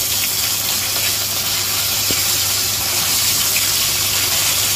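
Whole yellow croaker frying in oil in a stainless steel wok: a steady sizzling hiss, with a steady low hum underneath.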